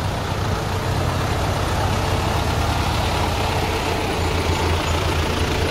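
Engine of a lifted, mud-tyred off-road 4x4 running low and steady as it creeps past at walking pace.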